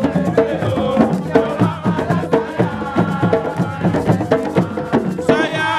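Instrumental break in a song with call-and-response singing: busy, quick percussion with sharp wood-block-like clicks under a short melody line.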